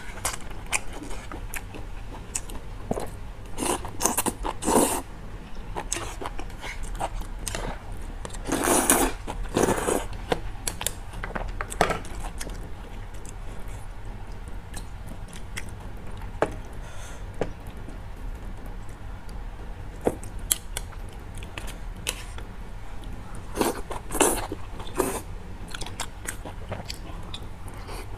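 Close-miked eating: chewing and slurping noodles in soup, with small clicks of chopsticks against the bowl. Three longer, louder slurps stand out, about 4 seconds in, about 9 seconds in and near 24 seconds.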